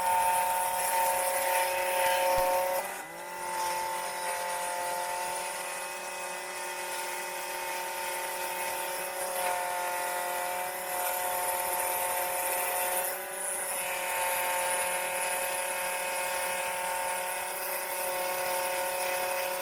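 Electric scroll saw running and cutting wood, a steady motor hum with a slight change in pitch and loudness about 3 seconds in and again near 13 seconds.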